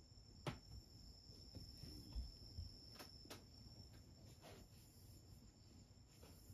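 Near silence: quiet room tone with a faint steady high-pitched tone and a few faint clicks, about half a second in and around three seconds in.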